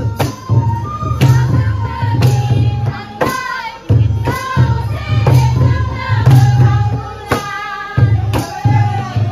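Bodo folk dance music: a drum beat, cymbal clashes about once a second, a high held melody line, and singing.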